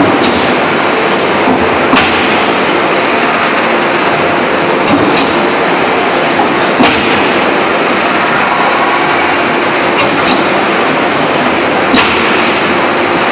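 Open-die forging press working a red-hot ring on a mandrel: loud, steady machine noise throughout, broken by sharp metallic knocks every two or three seconds, some coming in quick pairs.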